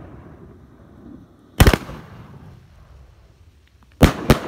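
Mammoth Ring of Fire fireworks cake firing: aerial shells breaking overhead with loud bangs, one about one and a half seconds in, then two in quick succession near the end, each trailing off in a fading rumble.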